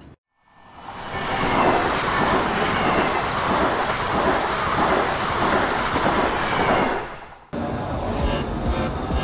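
Steady rushing, rumbling noise of a moving vehicle, swelling in over the first second and fading out near the end before it is cut off by music.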